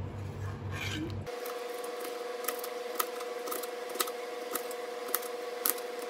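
Kitchen knife cutting through a head of napa cabbage kimchi and tapping the cutting board, sharp taps about twice a second from about a second in, over a steady hum.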